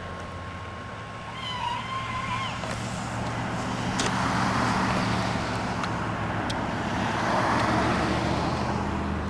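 A motor vehicle engine running with a steady low hum. Two swells of rushing noise, about four seconds in and again near the end, sound like vehicles passing on a snowy road.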